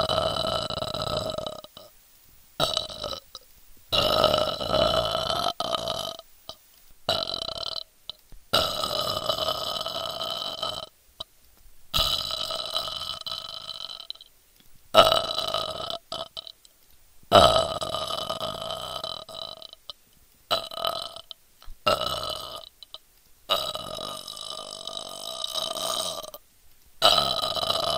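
A person burping on command: a long run of about a dozen drawn-out burps, each one to three seconds long, with short breaks between them.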